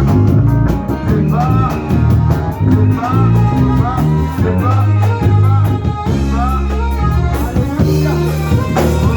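Live worship band music with a loud, prominent bass line and guitar keeping a steady beat. Short sliding melodic phrases sit above it, and there may be singing.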